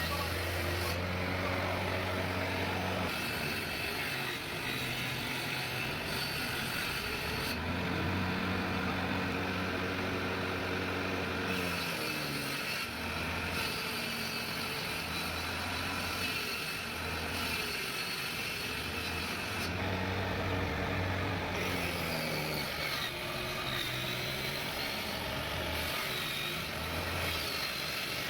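A woodworking machine's motor running in stretches, its low hum coming and going and dipping in pitch, over a constant rasping noise of wood being worked.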